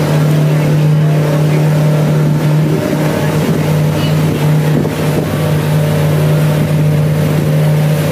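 A river ferry boat's engine running steadily at cruising speed, heard from on board as an even, pitched hum with a strong low tone.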